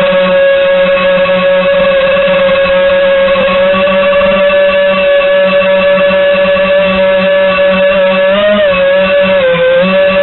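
FPV quadcopter's brushless motors and propellers whining at a steady pitch, dipping and rising briefly twice near the end as the throttle changes.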